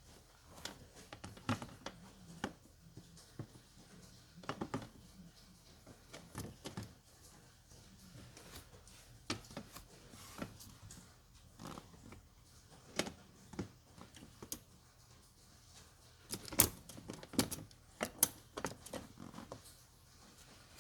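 Irregular clicks and clinks of hand tools and parts being handled during car battery work, busiest about two-thirds of the way in.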